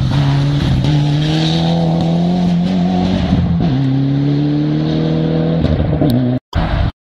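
Mitsubishi Lancer Evolution rally car's turbocharged four-cylinder engine accelerating hard past and away, its pitch rising through each gear, with upshifts about a second in and again about halfway through. The sound cuts out briefly twice near the end.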